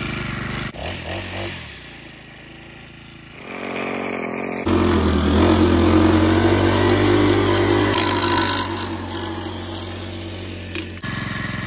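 Wild Badger 31cc four-stroke walk-behind edger engine running steadily while its blade spins through grass. The sound changes abruptly about a second in, drops quieter, then gets much louder from about five seconds in until near the end.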